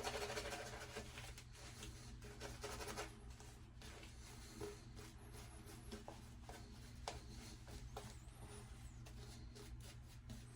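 Faint, soft swishing and rubbing of a synthetic shaving brush working shaving-soap lather, with a few light clicks.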